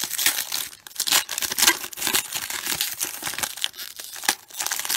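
The plastic wrapper of a 1994 Topps Series 2 baseball card pack being torn open and crinkled by hand: a dense run of short crackling rips.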